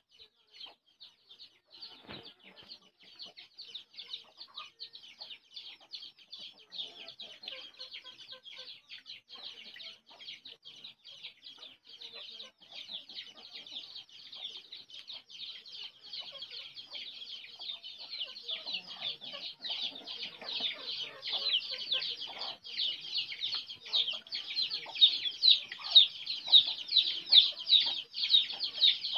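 Hens clucking, with a continuous rapid, high-pitched pulsing chirr over them that grows louder over the last several seconds.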